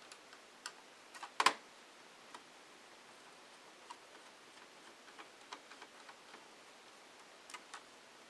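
Scattered small clicks and taps of a screwdriver and a screw against a Dell Inspiron 1420 laptop's palmrest frame as a screw is backed out and lifted away, the sharpest click about one and a half seconds in.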